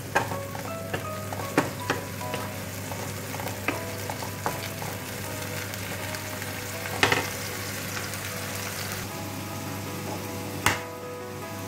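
Strips of mushroom sizzling in hot oil in a non-stick frying pan as a wooden spatula stirs them, with a steady frying hiss and several sharp knocks of the spatula against the pan. The loudest knock comes near the end.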